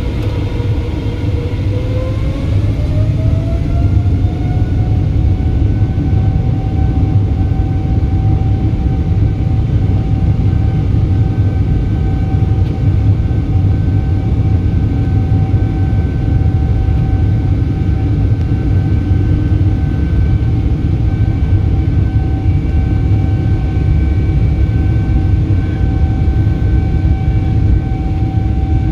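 Boeing 777's GE90 jet engines spooling up for takeoff, heard from inside the cabin. The engine whine rises in pitch over the first few seconds, then holds steady over a loud, low rumble.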